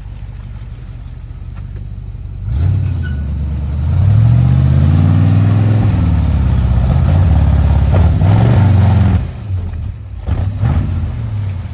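Off-road vehicle's engine revving hard in a creek crossing, its revs rising and falling several times under a rushing hiss, then easing off about nine seconds in.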